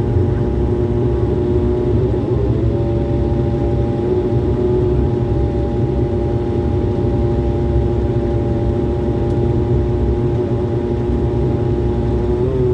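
Airliner cabin noise on the ground just after landing: a steady engine hum with a heavy low rumble. The engine tone shifts in pitch briefly about two and a half seconds in and again near the end.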